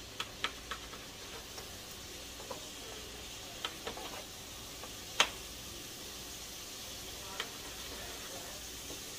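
Food sizzling in a frying pan with a steady hiss, broken by scattered sharp clicks and taps of a utensil against the pan as it is stirred, the loudest about five seconds in.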